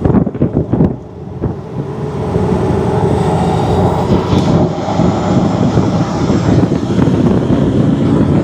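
Porsche 718 Cayman's turbocharged flat-four engine running under way, with induction noise from an aftermarket turbo inlet pipe. It grows louder over the first couple of seconds, then holds at a steady level.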